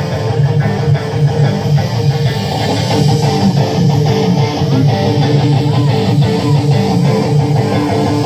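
Live band music led by electric guitars over bass, with no vocals.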